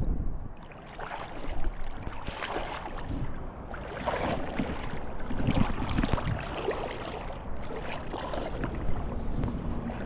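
Someone wading through a shallow river, water splashing and sloshing irregularly with each step.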